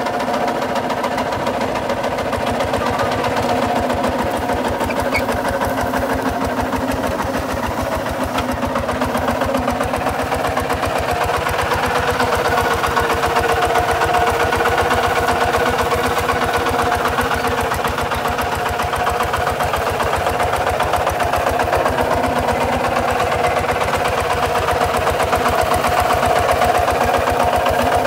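Kubota walking tractor's single-cylinder diesel engine running steadily with a rapid, even chugging while it pulls a plough through dry, hard soil. The engine is under load throughout.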